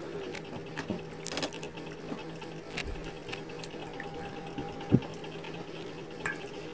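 Gloved hands squishing and turning raw chicken pieces in calamansi juice in a stainless steel bowl, giving irregular wet squelches and clicks, with one louder knock about five seconds in. A steady low hum runs underneath.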